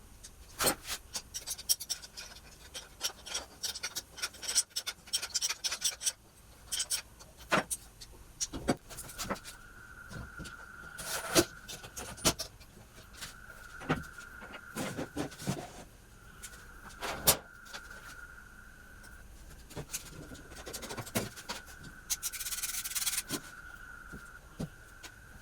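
Rubbing and scraping strokes on wood, like hand sanding or rasping, quick and dense for the first few seconds, then sparser with scattered knocks. A faint steady high whine comes and goes through the second half.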